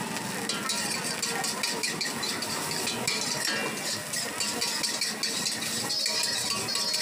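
Fried rice sizzling in a wok, with a metal spatula and ladle scraping and clattering against the wok in quick strokes as the rice is stirred and tossed.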